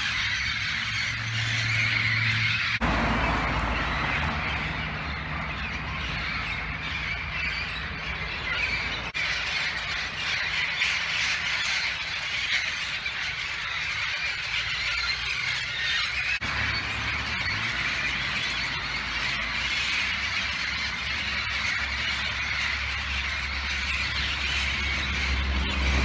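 A flock of wild parrots calling from the treetops, many calls overlapping without a break.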